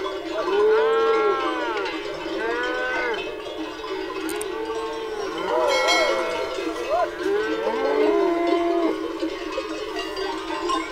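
Cattle mooing: several long calls that rise and fall in pitch, over the steady ringing of livestock bells.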